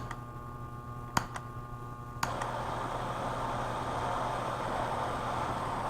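A few sharp clicks, then about two seconds in a handheld gas soldering torch lights and settles into a steady hiss of flame.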